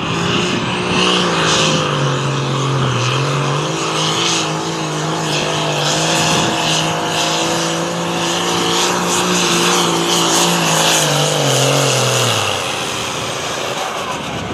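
Modified farm pulling tractor's engine running hard at high revs under load, its pitch holding steady apart from a short dip about two seconds in. About twelve seconds in the revs fall away as the tractor comes off the throttle at the end of its pull.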